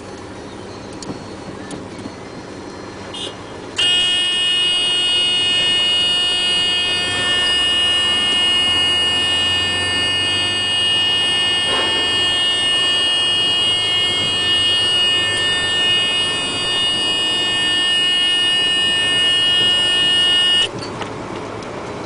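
A loud electronic warning buzzer sounds as one continuous steady tone, switching on about four seconds in and cutting off abruptly near the end, over the low running of a heavy dump truck's diesel engine. A single clunk sounds about midway.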